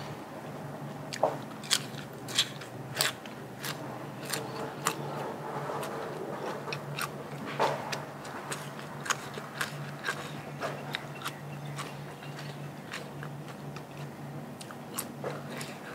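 Close-miked eating: a person biting and chewing crunchy food, with many sharp, irregular crunches throughout.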